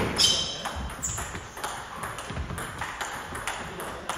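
Table tennis rally: the celluloid ball clicks sharply off the rubber paddles and the table, two or three hits a second. A louder hit comes right at the start.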